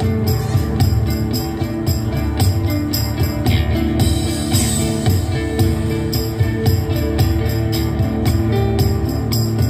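Live acoustic instrumental band music: a steady pulse of high percussion strokes, about four a second, over sustained lower notes.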